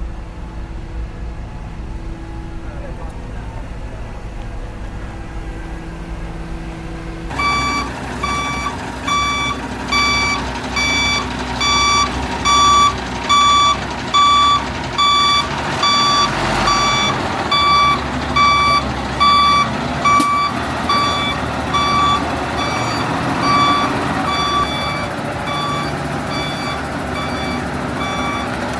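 Reversing alarm on heavy construction machinery beeping in a steady repeating rhythm over a diesel engine running, starting about a quarter of the way in.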